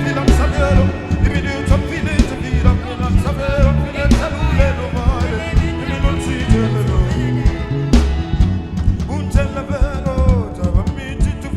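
Gospel worship music with singing over a steady beat and drum hits.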